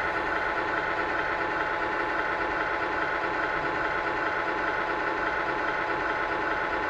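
Simulated big-rig diesel engine idling steadily, played by a GT Power light and sound kit Pro through the small speaker of an RC truck. The sound is thin, with little deep bass.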